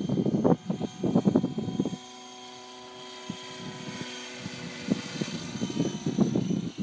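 JetRanger helicopter running steadily, heard as a whine of several steady tones that comes through plainly in the middle. A gusty rumble buffets the microphone at the start and returns from about five seconds in.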